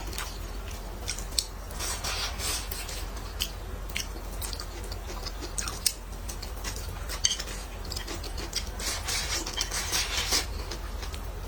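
Close-miked eating: utensils clicking against bowls and dishes, with chewing between, in scattered irregular clicks and short scraping smears.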